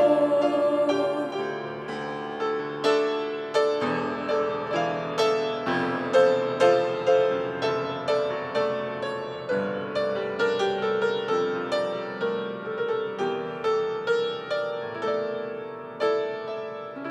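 Piano playing a hymn tune with chords, its notes struck about twice a second and each ringing and fading.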